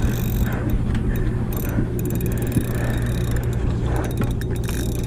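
Steady low hum of a sportfishing boat's engine, with scattered clicks and rattles of fishing tackle over it.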